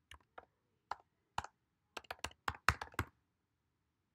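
Typing on a computer keyboard: a few spaced keystrokes, then a quick run of about eight as a word is typed.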